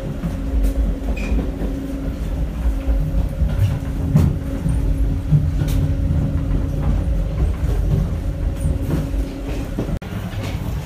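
Old-type passenger coach running on the rails, heard from inside: a steady low rumble and hum, with a few sharp knocks and rattles now and then.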